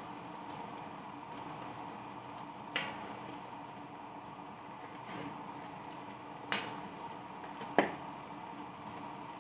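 A ladle stirring cabbage and string beans in coconut milk in a metal wok, knocking sharply against the pan three or four times over a steady simmering hiss.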